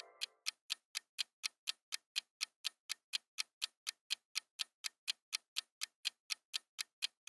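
Clock-ticking sound effect marking a quiz countdown timer: even, sharp ticks, about four a second.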